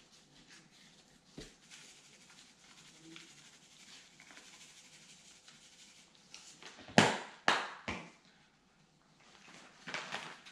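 Seasoning shaken from a plastic spice shaker onto raw chicken wings: a soft, steady sprinkling, then three sharp, loud shakes close together about seven seconds in. A plastic bag rustles near the end.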